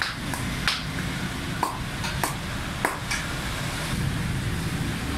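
A metal ladle clinks sharply against a large steel karahi of frying fritters, about six times in the first three seconds and more sparsely after, over a steady hiss and a low rumble of street traffic.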